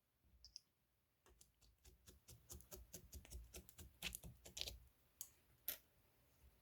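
Green marbled macaron slime being squished and stretched by hand, giving a run of faint quick clicks and pops, loudest in the second half.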